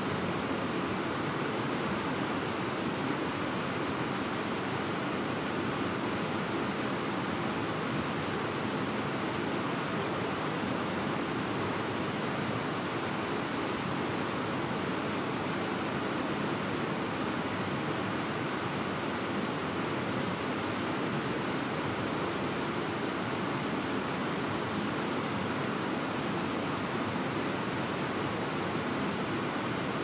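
Fast-flowing mountain river, the Takaragawa, rushing over rocks in white-water rapids: a steady, even rush of water.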